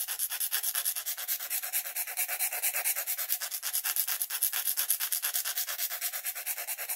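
A flat file filing the edge of a shaped piece of bassoon reed cane in quick, even strokes, about ten a second, bevelling the cane for a two-wire reed. The filing stops suddenly near the end.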